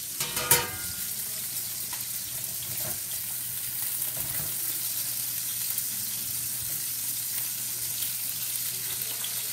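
Chicken thighs and sausages sizzling in oil in a stainless steel frying pan, a steady hiss. About half a second in, one short metallic clank with a brief ring from a stainless pan being handled.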